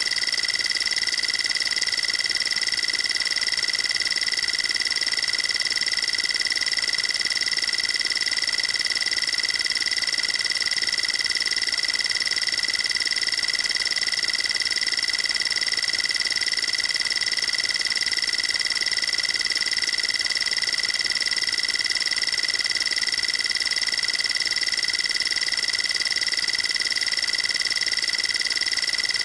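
Emergency alert system alarm tone: one steady, high-pitched, buzzy electronic tone, held without a break or change.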